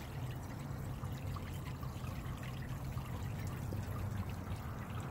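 Water pouring steadily from the outlet of a corrugated copper downspout and splashing into a pool of water in a basin, with small scattered drips and splashes, over a low steady hum.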